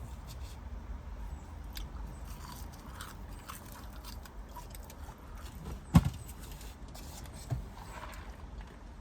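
A person chewing food close to the microphone, with soft mouth clicks. A sharp knock about six seconds in, the loudest sound, and a smaller knock about a second and a half later.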